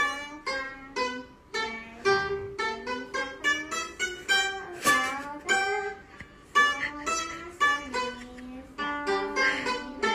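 Pipa played solo: a melody of single plucked notes, a few each second, each ringing briefly and fading, with some notes bent in pitch.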